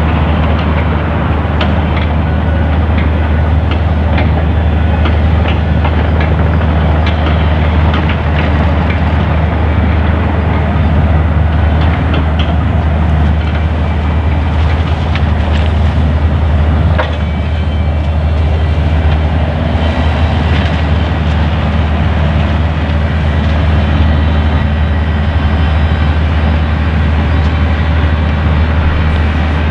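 Peppercorn A1 Pacific steam locomotive running light along the main line: a steady low rumble with scattered sharp rail clicks.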